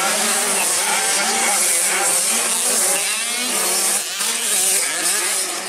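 Several 65cc two-stroke mini motocross bikes racing, their engines buzzing at high revs and rising and falling in pitch as the riders work the throttle.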